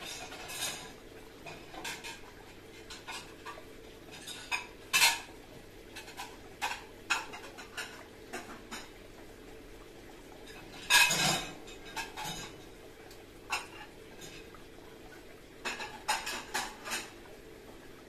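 Irregular clinks and knocks of hard objects over a faint steady hum. The loudest strikes come about five seconds and eleven seconds in, and a quick cluster comes near the end.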